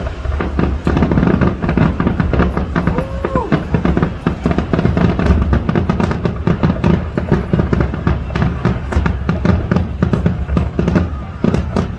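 Fireworks finale: a dense, nearly unbroken barrage of overlapping bangs and crackles over a deep rumble.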